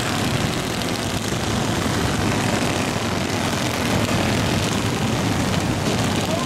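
A pack of racing go-karts' small engines running together at speed, a steady, dense buzzing drone.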